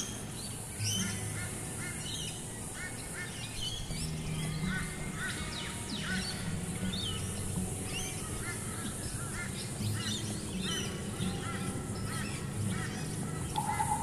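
Oriental dollarbirds giving short, harsh, cackling calls in quick succession, over faint background music with low held notes.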